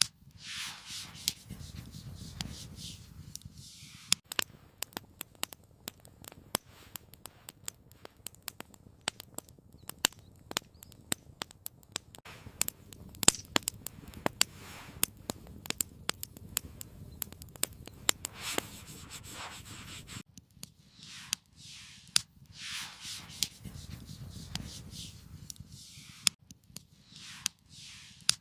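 Wood campfire crackling, with many sharp irregular pops and snaps that are densest in the middle, and a few soft rushes of noise near the start and toward the end.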